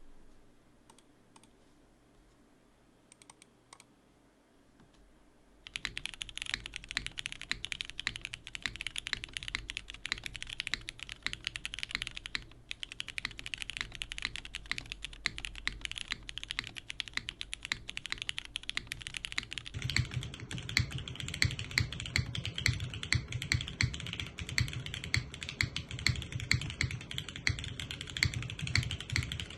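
A few faint, isolated mouse clicks. Then, about six seconds in, fast continuous typing starts on a Merisi 500C/M TKL custom mechanical keyboard with Cherry MX2A Nixie linear switches, a polycarbonate plate and doubleshot keycaps: dense clacking of keystrokes. About twenty seconds in the typing turns bassier and duller, heard through a phone's built-in microphone.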